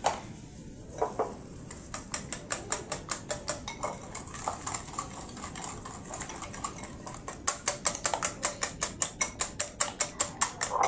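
Batter being beaten by hand in a bowl, the utensil clicking against the bowl about five times a second. About two-thirds of the way through the strokes turn louder and faster.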